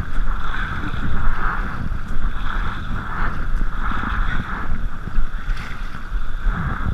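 River water rushing past a paddled kayak, with the splash of paddle strokes swelling about once a second, under a low rumble of wind on the microphone.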